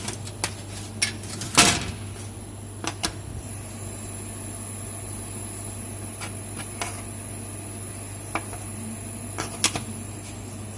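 Kamach 6090 CO2 laser cutting and engraving machine running: a steady low hum and a high whine, with irregular sharp clicks and knocks, the loudest about one and a half seconds in.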